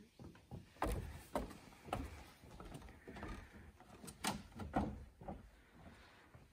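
Footsteps on a wooden boardwalk: hollow knocks of shoes on planks, about two a second, in two runs of three.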